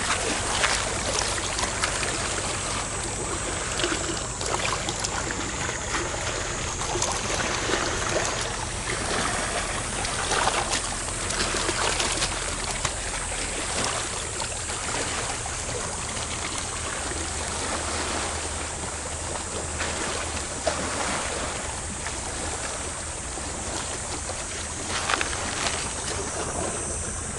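Shallow seawater sloshing and lapping among shoreline rocks, with a steady wash and many small splashes and knocks as someone wades and picks through the water.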